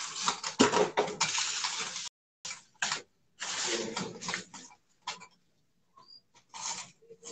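Handling noises from assembling a metal light-stand tripod: rustling and sharp clicks, loudest in the first two seconds. After that the sound breaks off into short scattered scrapes and knocks with dead silence between them.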